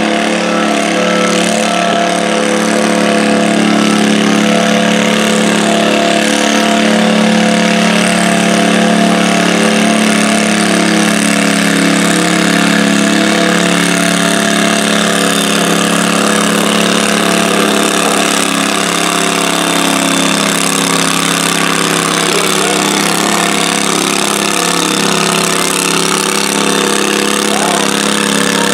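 Garden tractor engine running hard at a steady high speed as it drags a weight-transfer pulling sled, a loud, even drone that holds nearly one pitch.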